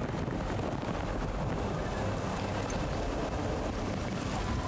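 A steady rushing, rumbling noise with no clear rhythm or pitch.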